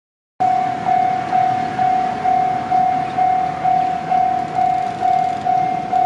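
Japanese railway level-crossing warning bell ringing a loud, even ding about twice a second, starting about half a second in. It signals that a train is approaching and the barriers are coming down.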